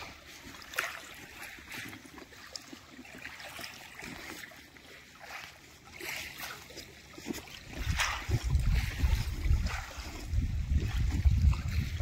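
Small wavelets lapping softly over a shell-and-gravel beach at the water's edge, with faint scattered clicks and trickles. From about eight seconds in, a low rumble of wind on the microphone sets in and becomes the loudest sound.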